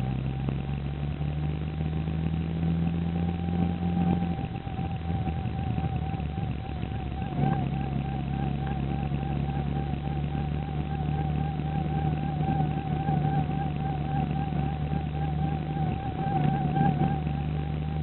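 A squeaking whine from behind a car's instrument cluster while driving: one steady high tone wavering in a regular rhythm over the engine and road noise. Its rhythm quickens with road speed. The engine note drops about four seconds in and picks up again a few seconds later.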